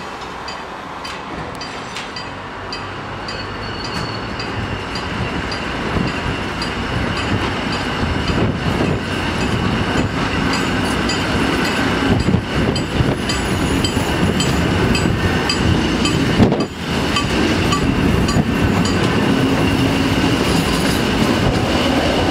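Electric multiple-unit commuter train pulling away from a station and gathering speed, heard through an open cab door: the motors and the wheels on the rails grow steadily louder as it accelerates.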